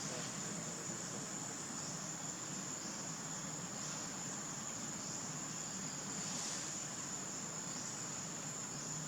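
A steady, continuous high-pitched insect chorus that does not let up.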